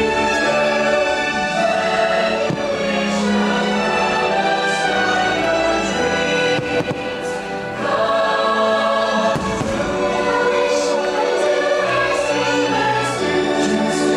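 Fireworks show soundtrack: a choir singing over an orchestra, with a few firework bangs mixed in.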